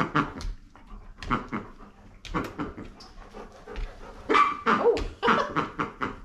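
A dog giving a series of short whines and yips, louder and closer together over the last two seconds.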